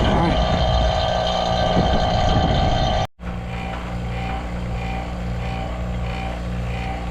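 Steady mechanical hum of a running motor with a low drone, interrupted by a brief dropout about three seconds in, then carrying on with a faint regular pulsing about twice a second.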